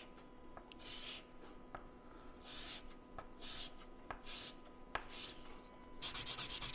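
A Macor machinable glass-ceramic rod rubbed across 600-grit sandpaper: separate short scratchy strokes about once a second, then about six seconds in a fast, continuous back-and-forth sanding. The ceramic abrades very easily, almost like chalk.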